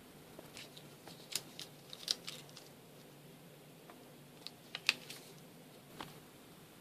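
Scattered light clicks and taps from a pen and paper being handled on a desk, a handful of sharp ticks with the loudest about two seconds in and again near five seconds.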